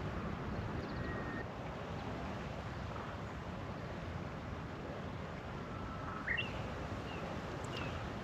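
Outdoor ambience: a steady low wind rumble on the microphone, with a few faint short bird chirps about a second in and again several times near the end.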